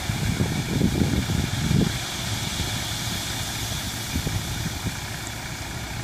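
Tractor diesel engine running steadily at idle while its tipping trailer stands raised, emptying wheat. Uneven low rumbles during the first two seconds settle into a steady drone.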